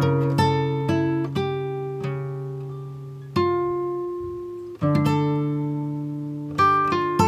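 Background music: a slow piece on plucked acoustic guitar, its notes and chords left to ring and fade.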